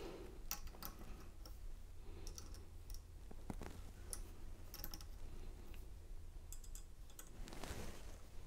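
Faint, irregular small metal clicks and taps as a key blank is seated in a key-cutting machine's vise and a hex key is used to tighten the clamp.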